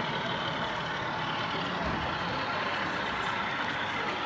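Diesel engine sound of a model Class 47 locomotive, played by its DCC sound decoder through a double iPhone speaker as the loco runs: a steady engine drone with little bass.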